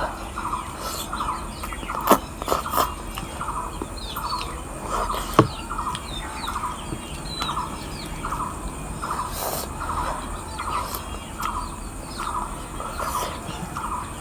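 Birds calling and chirping, one call repeating evenly about twice a second under smaller higher chirps, with a few sharp clicks about two and five seconds in.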